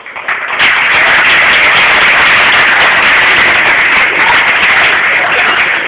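Audience applauding, starting about half a second in and easing off near the end.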